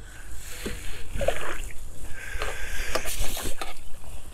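Water splashing and sloshing as a hooked carp is drawn over a landing net at the surface, with scattered clicks and knocks.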